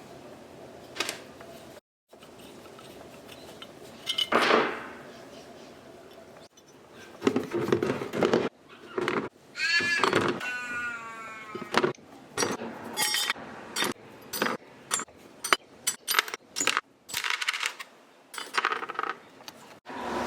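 Metal clinks, knocks and scrapes from hand work on the parts of an antique hand-cranked grinder, in several short bursts with a brief squeak about halfway.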